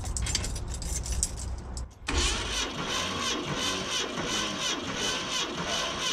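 Ford 460 big-block V8 being cranked over on the starter with its spark plugs out for a compression test: after a couple of seconds of clicking from the key ring, the starter cuts in suddenly and cranks steadily with an even pulsing beat.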